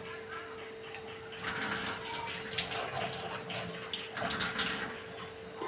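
Potato pakoras deep-frying in a kadhai of hot oil, sizzling and crackling. The sizzle grows louder about a second and a half in and eases off near the end.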